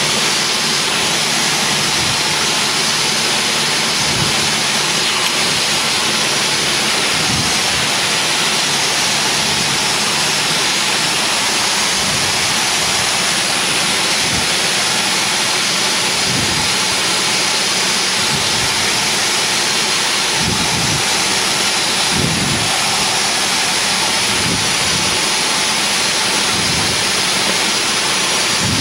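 Cockpit noise of a single-engine light aircraft on final approach: the engine and propeller running steadily under a dense, even rushing noise, with a few dull low bumps now and then.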